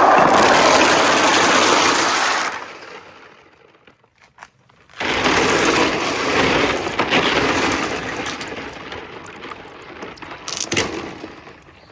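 Marbles rolling and rattling down a marble run's rails. A loud run lasts about two and a half seconds and dies away, then a second run starts about five seconds in and slowly fades, with a few sharp clacks near the end.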